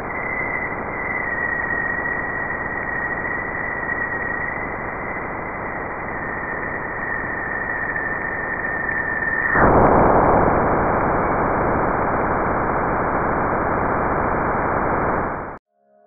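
Sonified Juno spacecraft Waves instrument electric-field data: a hiss with a thin high whistle that drifts slightly lower (upstream plasma oscillations). About ten seconds in it switches abruptly to a louder rushing roar as the spacecraft crosses Jupiter's bow shock into the magnetosphere.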